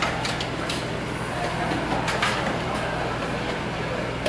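Cafeteria lunch-line noise: trays knocking and sliding along a metal tray rail, with scattered sharp clatters over a steady low hum.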